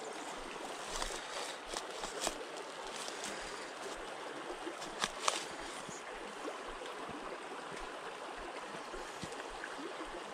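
River water running steadily, with a trickling, gurgling sound, and a few sharp knocks over it, the loudest about five seconds in.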